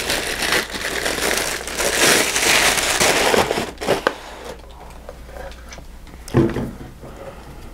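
Clear plastic bag crinkling as it is pulled off a boxed power supply, for about the first three and a half seconds. After that it is much quieter, with a few light knocks as the unit is handled and set down.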